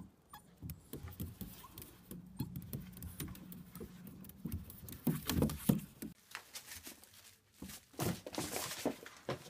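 A small dog's paws tapping on a plastic slide: a run of light clicks and knocks, with a louder cluster of thumps about five seconds in. After a sudden change about six seconds in, a small animal's claws scrabble and scratch on a plastic bin.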